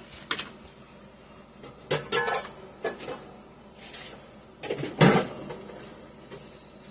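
Kitchen cookware and utensils clinking and knocking: a scattered series of separate clinks, one with a brief metallic ring about two seconds in, and the loudest knock about five seconds in.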